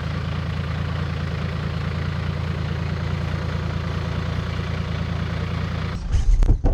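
Toyota LandCruiser 45 Series ute engine idling steadily with a low, even note as it creeps down a steep descent. About six seconds in it gives way abruptly to louder thumps and wind gusting on the microphone.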